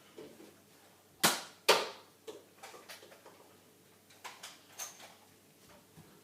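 Two sharp shots from a Nerf dart blaster about half a second apart, followed by several lighter clicks and taps.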